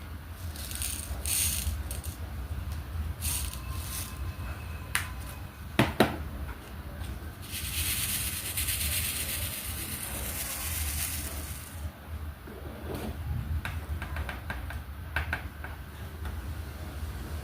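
Small plastic diamond-painting drills rattling in a tray as it is shaken for about four seconds, among scattered taps and clicks of the drill pen and tray, with one louder knock about six seconds in.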